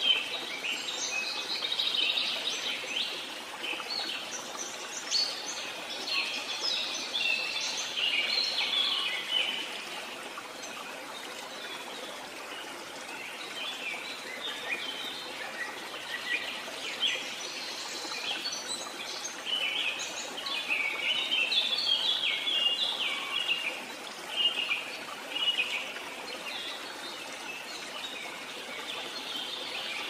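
Many small birds chirping and calling in quick, busy spells over a steady hiss of flowing stream water. The chirping thins out for a few seconds around the middle, then picks up again.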